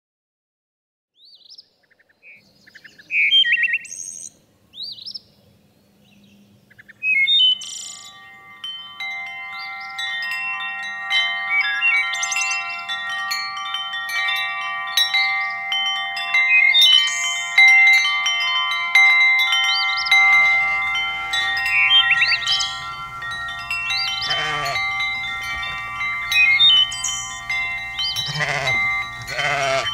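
Sustained chime-like tones come in about seven seconds in and hold as a steady chord, with short high chirps before and over them. A flock of sheep bleats twice over the chord near the end.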